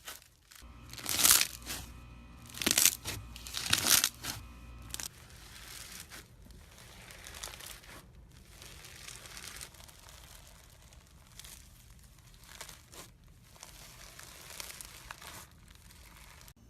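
Slime being squeezed and stretched by hand, crackling and crinkling, with a few louder crackly bursts in the first four seconds, then softer continuous crackling.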